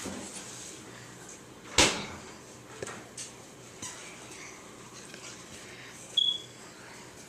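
A sharp knock about two seconds in and a few faint taps, with a brief high squeak near the end.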